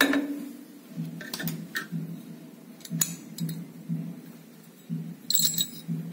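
Metal clicks and clinks as the bolt, firing pin and bolt carrier of a SIG 716 rifle are handled and taken apart by hand. A sharp click comes at the start, then several lighter clicks, then a brighter metallic rattle about five seconds in. Under it runs a low hum pulsing about twice a second.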